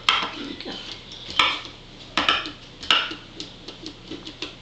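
Hard plastic toy motorcycle and action figure knocking and clicking against a wooden tabletop as they are handled: about four separate knocks with fainter ticks between.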